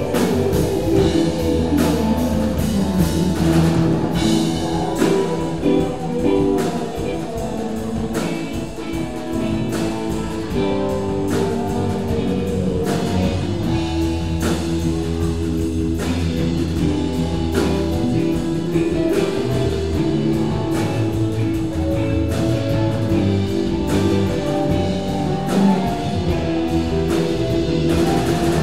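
Live rock band jamming: two electric guitars, bass guitar, keyboard and a drum kit playing together in an improvised groove, with a steady beat and held bass notes.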